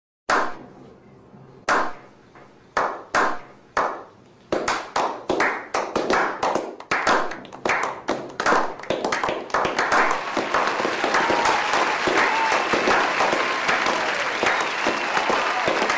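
Audience applause: a single sharp clap, then scattered claps that come faster and faster until, about ten seconds in, they merge into steady applause with voices calling out in it.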